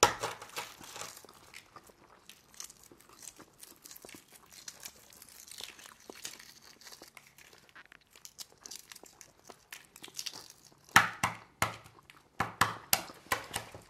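Hard-boiled eggshells being cracked and peeled off by hand: a run of small crackles and crinkles, with a cluster of sharper, louder cracks near the end.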